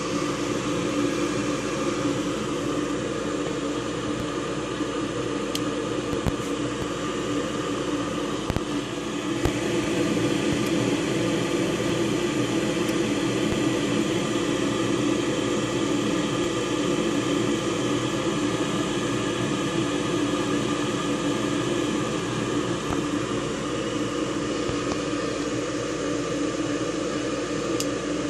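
York 90% furnace's draft inducer motor running with a steady whirring hum, a little louder from about nine and a half seconds in.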